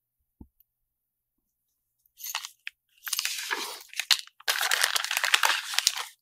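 Clear plastic zip bags crinkling and rustling as they are handled and picked up, in short bursts that grow into a longer, louder crackle in the last two seconds. A faint tap comes just before this.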